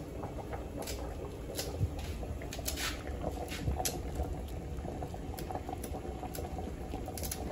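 Large aluminium pot of fish broth boiling steadily on a gas burner, a continuous bubbling with a few scattered small ticks and pops.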